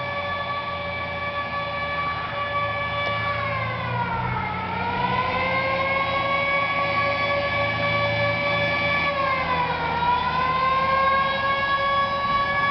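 Siren on an M715 fire truck, holding a steady tone that twice sags in pitch and climbs back up, over the low rumble of the truck's engine. It grows louder as the truck approaches.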